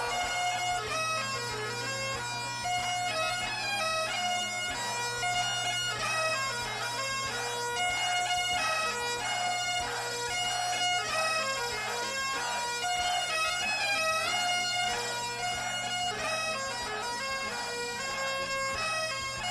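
Bagpipes playing a quick melody of short notes over a steady low drone, in a Celtic rock track.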